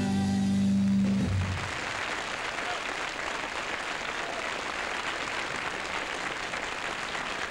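A rock band's final held chord on electric guitars rings out and stops about a second and a half in, and an audience's applause follows.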